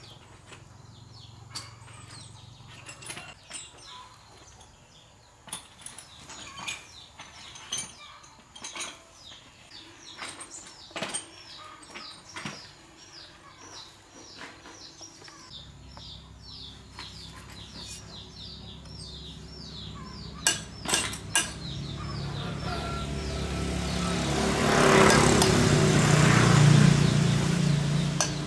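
Scattered metallic clinks and knocks of a rickshaw differential's ring gear and carrier being handled, with a run of quick high chirps in the middle. From about halfway a motor vehicle's engine comes in low and grows steadily louder, loudest near the end.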